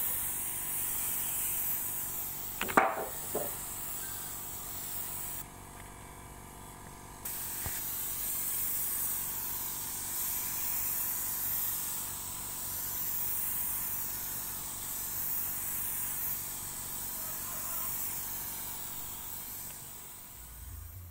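Compressed-air spray gun hissing steadily as it sprays melamine sanding sealer onto wood. The spray stops for about two seconds a third of the way in, then resumes. There is a short, sharp, loud sound about three seconds in.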